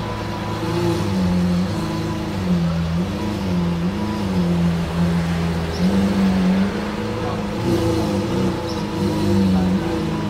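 Hamann Nervudo Lamborghini Aventador Roadster's V12 with a Capristo exhaust running low and steady, its pitch wavering gently up and down as the car pulls slowly away.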